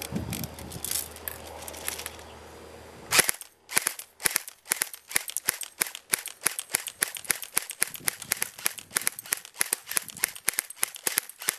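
Crosman Pulse R-76 electric airsoft rifle shooting BBs: about three seconds in, a fast string of sharp shots starts, roughly five a second, and keeps going.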